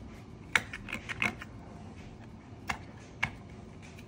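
Hands gripping and twisting the tight metal screw-top lid of a glass jar of beetroot, giving sharp clicks and scrapes: several in the first second and a half, two more about three seconds in.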